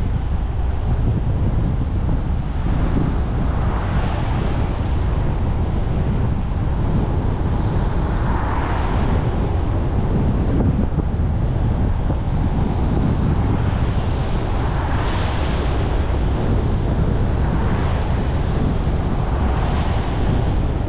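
Traffic on a rain-soaked street: a steady low rumble of tyres and wind buffeting the microphone. Wet tyres hiss as vehicles pass, swelling and fading a little before halfway and three times near the end.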